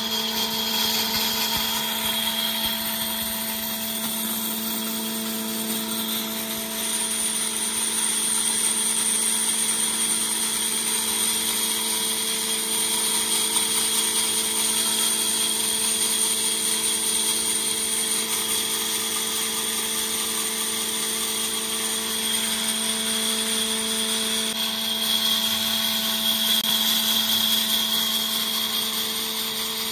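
Multipurpose woodworking machine running with its band saw and grooving cutter going at once: a steady motor hum under the hiss of cutting as the band saw blade works through a wooden beam. The hiss brightens about seven seconds in and eases back near the end.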